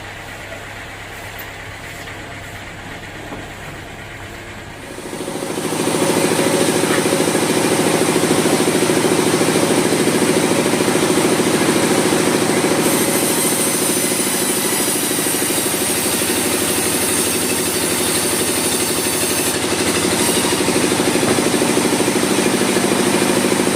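Sawmill saw running with a steady hum, then biting into a mahogany log about five seconds in, becoming a loud, steady cutting noise with a hissing high edge that carries on as the cut continues.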